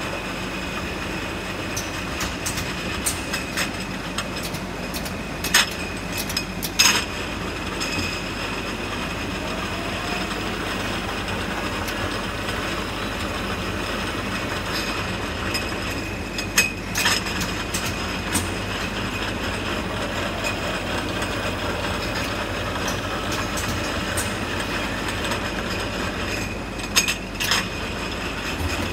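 Automated two-nozzle liquid filling machine running: a steady mechanical hum with a thin whine over it as the conveyor runs and liquid pours into glass jars, broken by a few sharp clacks in pairs roughly every ten seconds.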